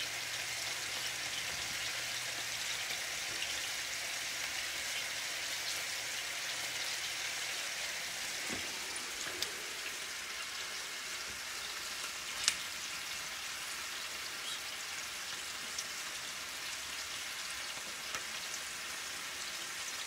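Scallops searing in olive oil in a hot frying pan: a steady sizzle with scattered small pops and one sharper pop about twelve seconds in.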